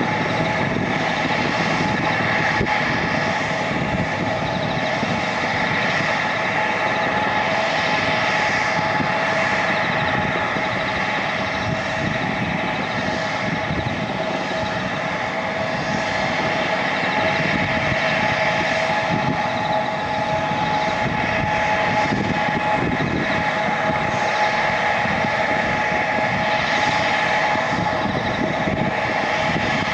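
Embraer 175 airliner's turbofan engines (GE CF34-8E) running at idle: a steady whine of several held tones over a hiss.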